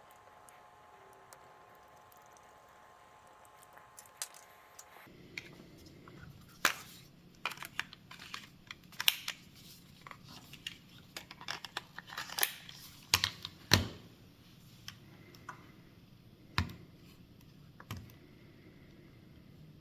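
Scattered light clicks and taps of small plastic parts and tools being handled while a Nintendo Switch console is put back together, starting a few seconds in and thickest in the middle.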